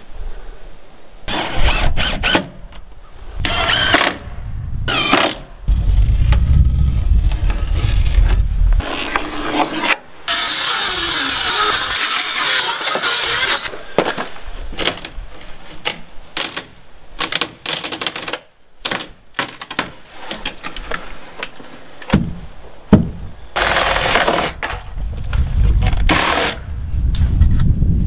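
Cordless drill-driver running in short bursts as screws go into the wood, mixed with knocks and clatter of carpentry work. The sound changes abruptly several times, between short clips.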